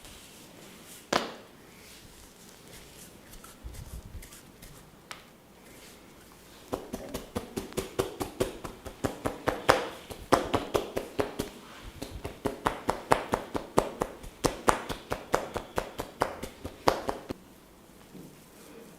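A barber's hands working in a percussive massage: one sharp crack about a second in, then a fast, even run of sharp slaps, about five a second, for some ten seconds.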